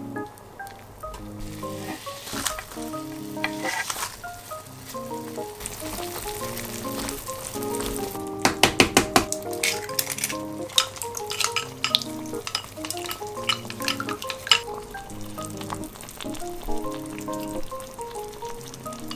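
A pot of yukgaejang, spicy Korean beef soup, simmering with a sizzling hiss as it is stirred with chopsticks. From about eight seconds in comes a quick run of sharp clicks and taps, an egg being cracked and beaten in a glass bowl. Light background music plays underneath.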